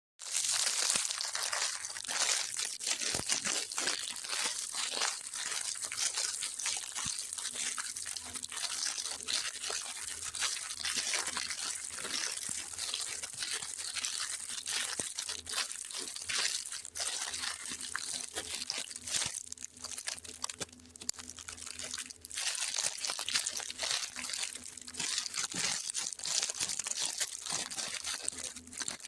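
Snack and sweets packaging being handled and unwrapped: continuous crinkling and crackling with many small clicks and occasional tearing.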